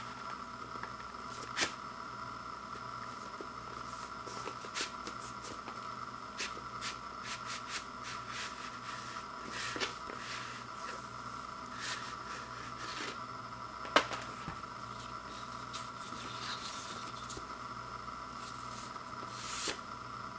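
Paper liner-note sheets and a cardboard gatefold LP sleeve being handled: scattered rustles, light taps and clicks, with two sharper clicks, one near the start and one about two-thirds through. A steady hum runs underneath.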